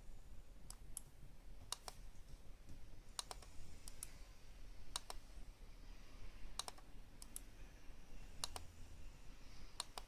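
Sharp clicks, most of them in quick pairs, coming about every second or so at an uneven pace over a faint low rumble.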